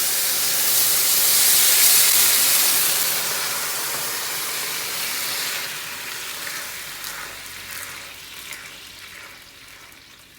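Balsamic vinegar sizzling and steaming in a hot frying pan as it deglazes the pan. A loud hiss fades steadily away, with a few small crackles near the end.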